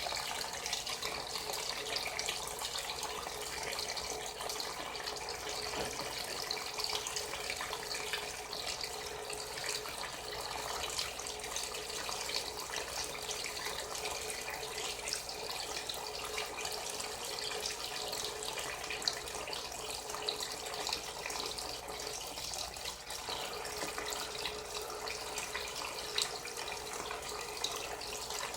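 Frigidaire Gallery Series top-loading washing machine (FWS777GH50) filling its tub, with a steady rush of water pouring in.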